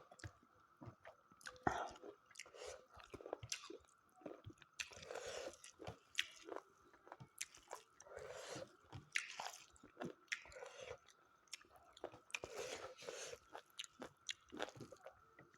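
A person chewing and eating mutton curry with rice up close to the microphone, with irregular wet mouth clicks and smacks.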